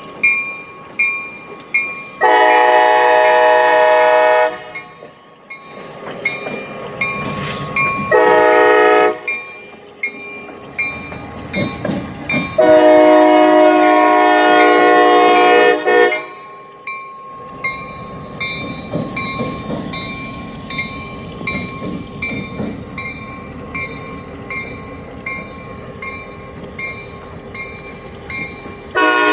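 Air horn of CSX locomotive 2686 blowing a long blast, a short one, another long one, and a fresh blast starting near the end, each a chord of several tones. Under it a bell dings about twice a second, and in the second half the low rumble of the train rolling past takes over.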